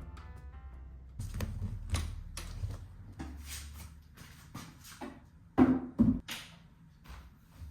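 Background music dies away at the start. Then come a series of knocks and clatters from things being handled, with two louder thumps close together about six seconds in.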